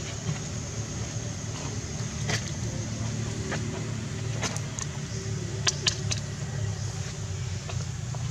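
Steady low rumble like an engine running nearby, with a faint steady high hiss and a few sharp clicks scattered through.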